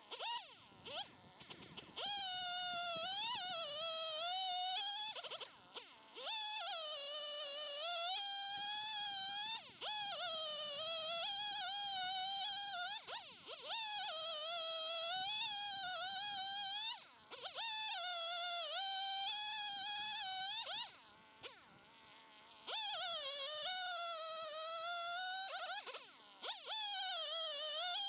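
Two-stroke chainsaw running at full throttle while bucking logs, its pitch wavering and sagging under the load of the cut. It runs in about seven stretches of a few seconds, each broken by a short drop in throttle.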